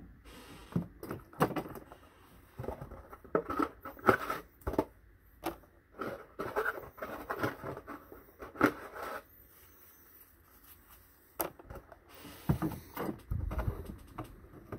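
Handling noise at a tabletop: rustling, light taps and knocks in irregular bursts. Near the end a cardboard box of nitrile gloves is picked up and moved, with a dull thump.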